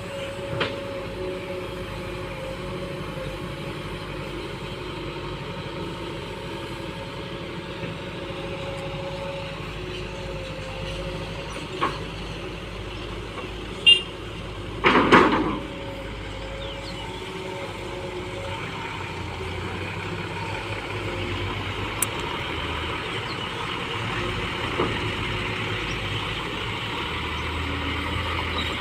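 Heavy diesel machine engine running steadily. About halfway through there is a loud burst about a second long, and a few sharp clicks.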